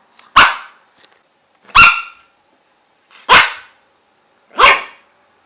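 A puppy barking, four single sharp barks evenly spaced about a second and a half apart, the second one higher and more yelping.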